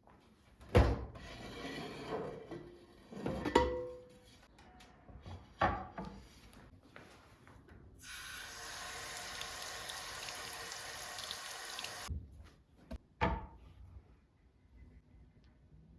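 Water running from a tap into a sink for about four seconds, starting and stopping abruptly, with a few sharp knocks and clinks, like dishes being handled, before and after it.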